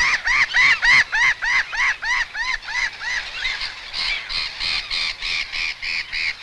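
Birds calling, likely gulls: a fast, regular run of sharp calls at about four a second. About four seconds in, it gives way to a denser clamour of many overlapping calls, as from a flock of black-headed gulls.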